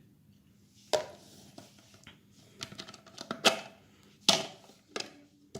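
Scattered clicks and knocks of a plastic-cased voltage stabilizer being handled and turned over in the hands. The loudest tap comes about three and a half seconds in.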